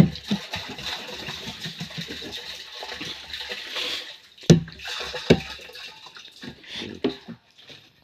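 Water running and splashing steadily, breaking off about four seconds in, followed by a couple of sharp knocks.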